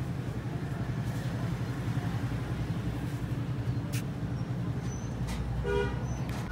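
Street ambience dominated by the steady low rumble of vehicle traffic engines, with a sharp click about four seconds in and a brief pitched tone near the end.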